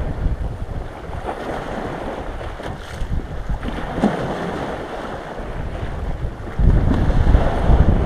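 Wind buffeting the microphone in gusts, over the wash of small sea waves against shore ice. The rumbling gusts ease off about a second in and come back strongly from about six and a half seconds.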